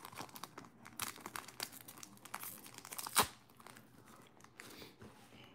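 A foil Pokémon card booster pack being torn open by hand, the wrapper crinkling in a string of small crackles, with one sharper rip about three seconds in.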